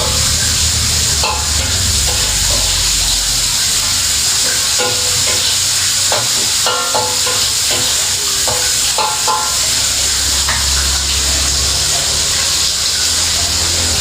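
Food frying in a pan with a steady sizzle, with short clinks and scrapes of a utensil stirring it throughout.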